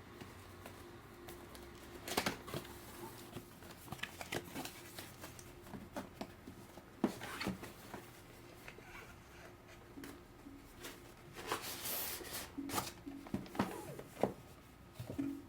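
Irregular clicks, taps and rustles of hands handling computer parts, with a cluster of louder clicks about two seconds in, another near the middle and a longer rustle about three-quarters of the way through.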